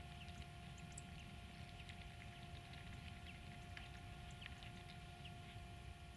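Quiet waterside ambience: a low rumble, a faint steady hum, and scattered faint ticks and small chirps.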